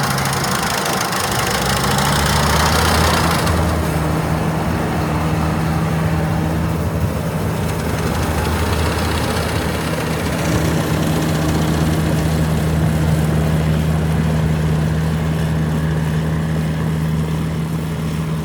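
Yanmar mini combine harvester running steadily with a continuous engine hum. A broad rushing noise over it is louder for the first three or four seconds, then falls away.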